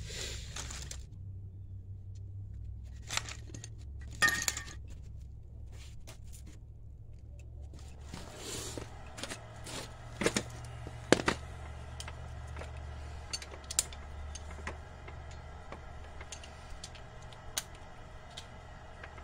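Metal hand tools and sockets clinking and rattling as they are handled, in scattered sharp clinks over a low steady hum.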